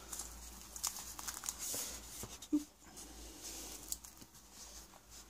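Cardstock and patterned-paper pages of a handmade photo folio being opened and handled by hand: soft paper rustling with a few light clicks and taps, the firmest a soft knock about halfway through.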